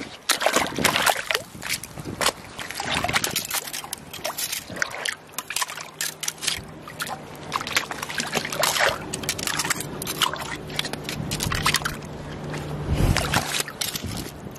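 Seawater sloshing and splashing among rocks at the shoreline, with irregular crackling throughout. A steady low hum comes in about four seconds in and stops shortly before the end.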